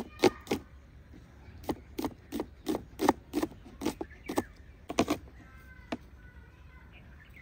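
Knife chopping an onion, a run of sharp strikes about three a second that stops about five seconds in.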